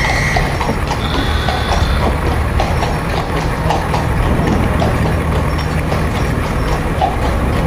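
Street traffic sound, a steady low rumble of motor traffic with scattered clops and knocks like horses' hooves on pavement. A short high tone sounds at the very start.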